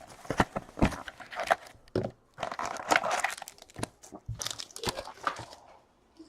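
Trading card pack wrappers crinkling and tearing as the cards are handled, a run of irregular rustles and sharp clicks.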